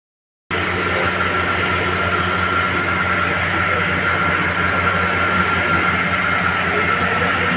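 Steady running machine noise: a constant low hum, a thin high whine and a broad hiss. It starts abruptly about half a second in and holds even.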